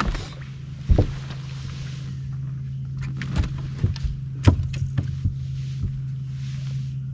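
A motor on a bass boat hums steadily and low. Over it come a few hard knocks and thuds on the boat, the loudest about a second in and about four and a half seconds in.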